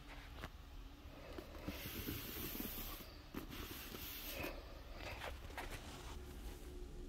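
Rustling and rubbing handling noise in two hissy stretches, with a few light clicks, as the phone is moved about and a hand touches the cardboard shoebox.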